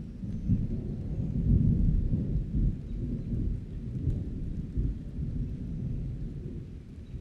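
Rainstorm with a continuous low rumble of thunder, swelling loudest about one and a half seconds in and easing off toward the end.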